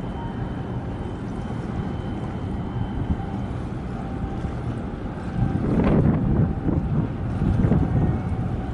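Wind buffeting the microphone over a steady low rumble, with stronger gusts a little past halfway and again near the end.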